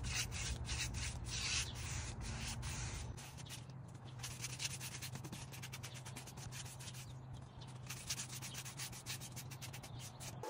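A synthetic-bristle paintbrush swishing back and forth along wooden molding as black gloss enamel is brushed on, in quick repeated strokes.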